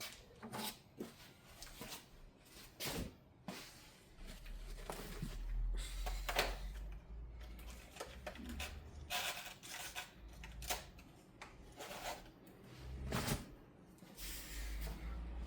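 Scattered clicks and clunks of tools and parts being handled, with a low rumble at times, as the rough edge of a freshly drilled hole is about to be dressed with emery paper.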